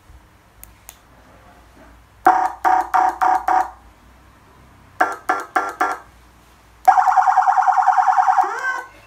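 Electronic siren amplifier of a 1.2 m emergency-vehicle light bar running through its tone patterns: five short horn-like blasts, then four quicker ones, then a fast-pulsing tone at about ten pulses a second that breaks into a brief sliding tone near the end.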